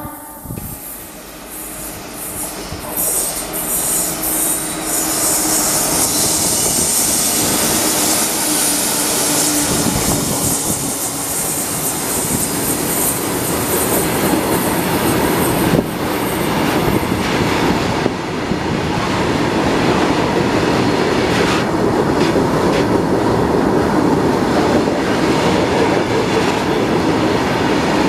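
Freight train of tank wagons behind a WAG-7 electric locomotive running past close by, the steel wheels rumbling and clattering on the rails. It grows louder over the first few seconds as it nears, with a high wheel squeal through the first half, then keeps up a steady rumble.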